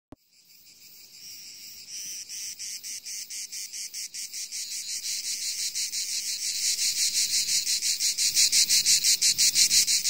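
Insects chirring in a rapid, even pulse, like summer cicadas or crickets, growing steadily louder throughout.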